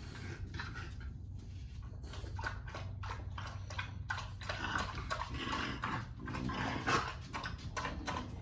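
French Bulldogs whimpering and snuffling, with scattered short clicks and taps. The dog sounds grow louder about halfway through.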